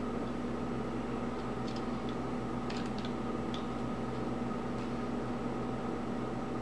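Steady electrical hum with a few faint light clicks and taps near the middle, from small laptop parts being handled during disassembly.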